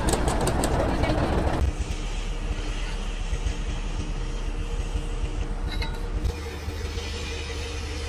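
Komatsu D155A bulldozer's diesel engine running: loud and rough with some sharp metallic ticks for the first second and a half, then a steadier, quieter hum.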